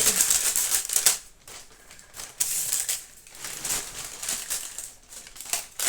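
Paper and plastic crinkling and rustling as the shopping receipt and packaging are handled. It is heaviest in the first second, then comes in a few shorter bursts.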